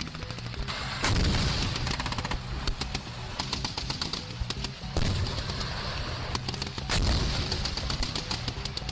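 Rapid gunfire at a tank firing range: machine-gun shots cracking in quick runs over a deep low rumble, growing louder in steps about a second, five and seven seconds in.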